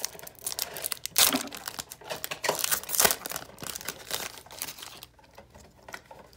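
Foil wrapper of a football trading-card pack being torn open and crumpled: irregular crinkling and crackling with a few sharper rips. It dies down to soft card handling near the end.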